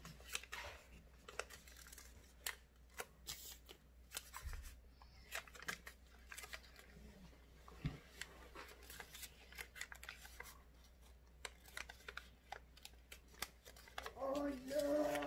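Origami paper being folded and creased by hand: scattered short paper rustles and crinkles. A brief voice sound comes near the end.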